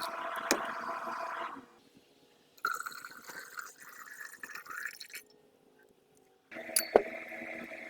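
Hot water poured into a glass beaker to rinse freshly precipitated gold granules, with water running and glass clinking. It is broken twice by short silent gaps, and there is a sharp clink about seven seconds in.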